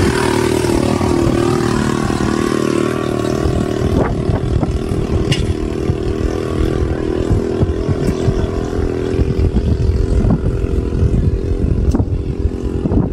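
Engine running steadily close by: a constant low rumble with a steady hum, and a few brief sharp clicks.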